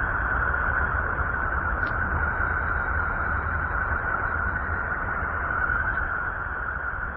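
Steady, unchanging hiss with a deep rumble underneath: a space-probe recording played as the sound of a planet.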